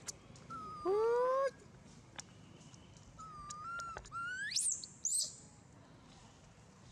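Baby long-tailed macaque crying out in high, wavering coos. The loudest call comes about a second in, and shorter, higher calls follow around three to five seconds in.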